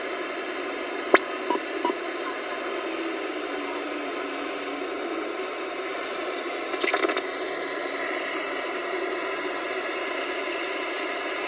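President Lincoln CB/ten-metre radio receiving with no station on, its speaker giving a steady band static hiss. There is a sharp click about a second in and a short crackle around seven seconds.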